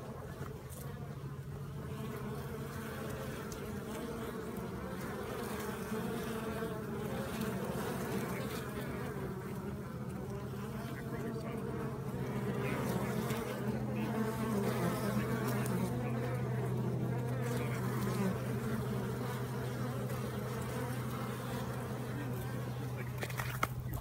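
Steady buzzing hum of a wild honeybee colony, many bees flying around the nest entrance in a rock crevice right at the microphone. The hum grows somewhat louder about halfway through.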